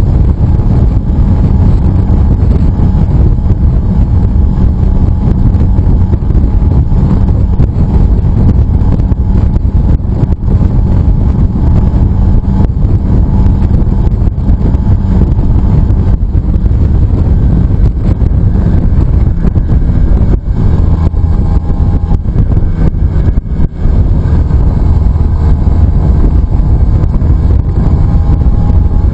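Heavy wind rush on the microphone of a motorcycle at riding speed, over the steady running note of an Aprilia RS 125's two-stroke single-cylinder engine. The level dips briefly a few times.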